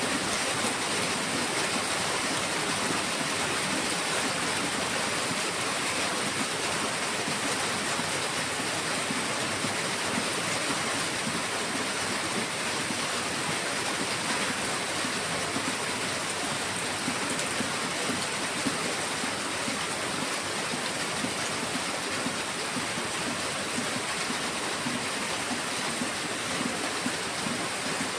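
Heavy rain falling steadily: a dense, even hiss with no thunder or single drops standing out.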